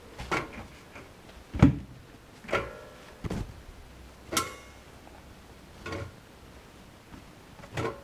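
Laundry being pulled out of a front-loading washing machine's stainless steel drum into a plastic basket: about seven irregular knocks and clunks. The loudest is a low thud about a second and a half in, and a couple of them leave a short metallic ring.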